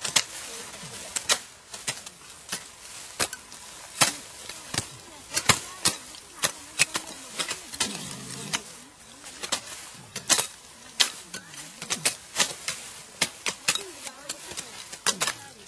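Hand sickles cutting henna stems: a steady stream of sharp, irregular snapping cuts, one or two a second.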